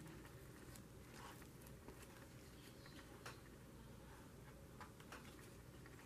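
A card being rubbed over paper to smooth down a freshly glued layer: faint scraping strokes with a few light ticks.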